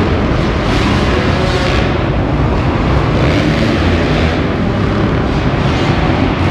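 A pack of motocross dirt bikes racing around an indoor dirt track, their engines running hard and heard together as a loud, steady, echoing noise under the arena roof.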